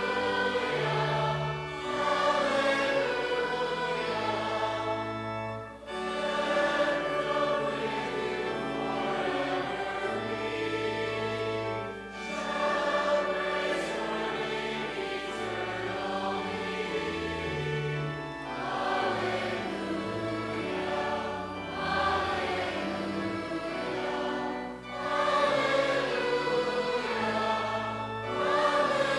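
A group of voices singing a hymn together over sustained low accompanying notes, in lines a few seconds long with brief pauses between.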